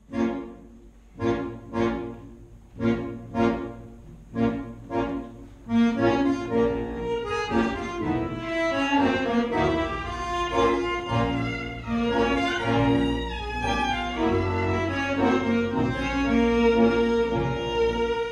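Klezmer band playing live with accordion and guitars. For about six seconds it plays short accented chords, mostly two at a time, with gaps between them. Then the full band comes in and plays on with a running melody.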